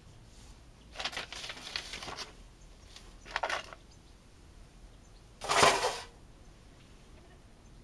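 Foil bag crinkling in three bursts as it is handled and dragged aside, the loudest about five and a half seconds in.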